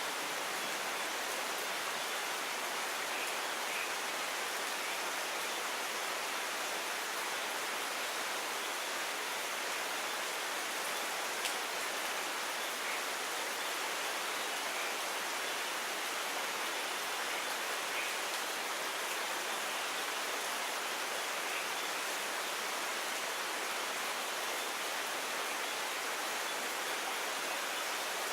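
Steady rain, an even hiss without any swell, with a few faint drop ticks and one slightly sharper tick about eleven seconds in.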